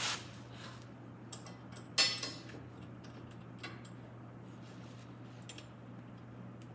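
Sparse metal clicks and clinks of hand tools working on the front suspension and coil spring compressor, with one sharp metallic clank about two seconds in. A steady low hum underneath.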